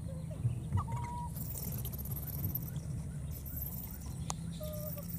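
A few short animal calls, one about a second in and a pair near the end, over a steady low rumble, with a single sharp click shortly before the end.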